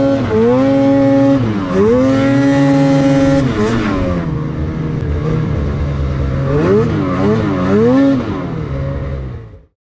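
Lynx Boondocker snowmobile's 850 E-TEC two-stroke engine revving under load in deep snow, its pitch rising and falling with the throttle. Held high for about two seconds early on, then eased down, with a run of quick throttle blips near the end before it fades out.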